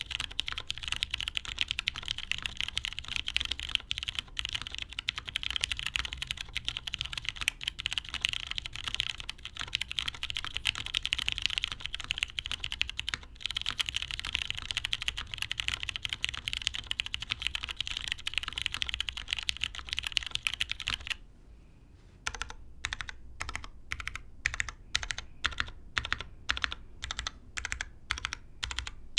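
Fast typing on a custom mechanical keyboard with lubed Cherry MX Brown switches on an O-ring-mounted UHMWPE plate, with GMK keycaps. About two-thirds of the way in the rapid typing stops briefly, then single keys are pressed at an even pace, two or three a second.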